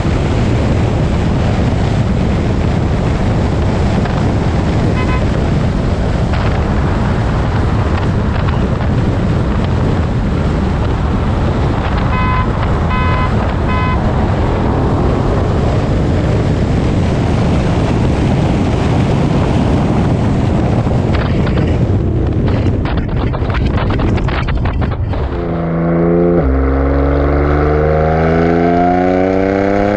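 Wind rush and road roar from a car-mounted camera at highway speed, with a short run of beeps about halfway through. Near the end a car engine revs up hard, its pitch climbing as the car accelerates.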